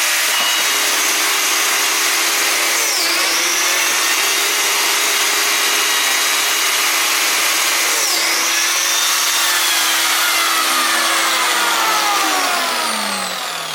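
Biscuit jointer's motor running with a steady high whine. Its pitch dips briefly twice as the spinning blade cuts slots, then the motor winds down with a falling whine near the end.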